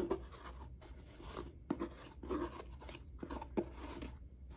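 A ribbon being slid off a Louis Vuitton cardboard drawer box, with hands handling the box: irregular soft rustling and rubbing with a few small knocks.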